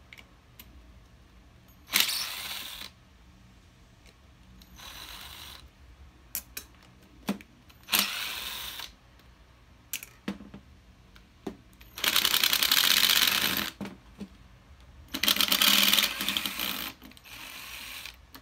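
Screws being driven out of a screwed-together lure mold box: a series of short rasping bursts of rapid clicking, the two longest near the middle and near the end, with small sharp clicks between.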